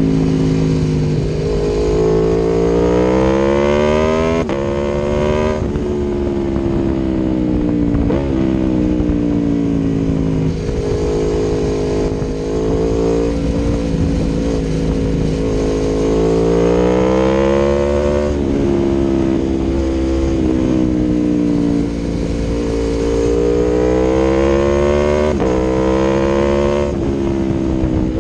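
Aprilia Tuono V4 1100 Factory's V4 engine through an Akrapovic exhaust, pulling hard. The pitch climbs, drops at each gear change, then climbs again, several times over, with some stretches of easing off and rolling on.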